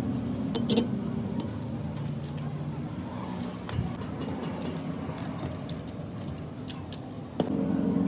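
Small metal compressor parts, such as valve springs and pins, clinking and tapping against a steel tray as they are handled. A handful of separate clicks are heard, a cluster of them late on. A steady low drone runs underneath.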